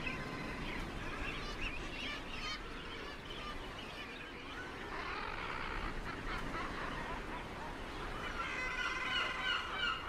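Thick-billed murres calling from their cliff colony, harsh repeated calls that grow denser and louder near the end as the adults defend their nests.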